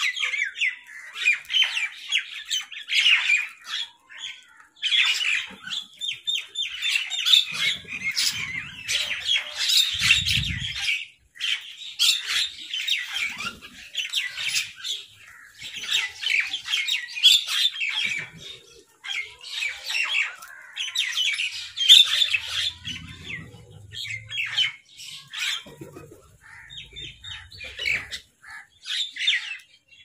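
A mixed flock of house crows and mynas squawking and chattering in bursts as they squabble over food, with short pauses between bursts. A low thump comes about ten seconds in.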